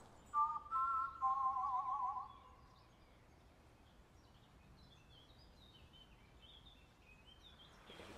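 A brief electronic chord of a few held notes that warble together, starting just after the opening and lasting about two seconds, then faint bird chirps.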